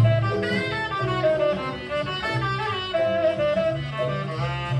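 A recorded jazz track playing back, a horn melody line over a double bass.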